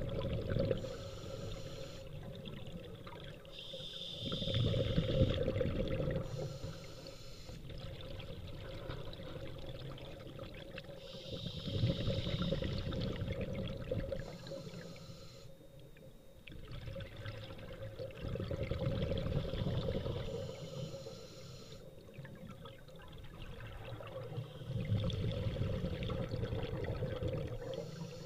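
Scuba diver breathing underwater: each breath starts with a hiss from the regulator, then the exhaled air bubbles out, in a slow cycle about once every seven seconds.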